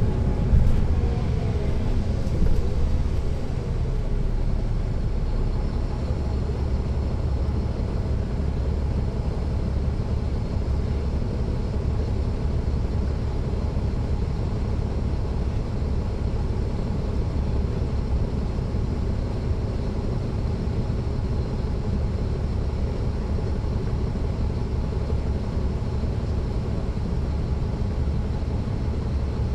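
Caterpillar C13 ACERT inline-six diesel of a 2009 NABI 416.15 (40-SFW) transit bus, heard from the rear seats inside the bus as it runs along with a steady low rumble. A falling whine comes through in the first few seconds.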